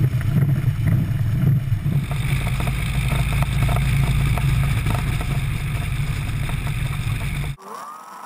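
Piper L-21B Super Cub on a rough grass strip heard from a camera on its landing gear: a loud, rough rumble of wind, engine and tyres jolting over the turf, growing brighter with hiss about two seconds in. Near the end it cuts off abruptly to a much quieter steady hum.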